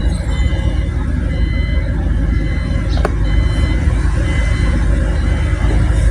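Steady low rumble of road traffic, with a single sharp click about three seconds in.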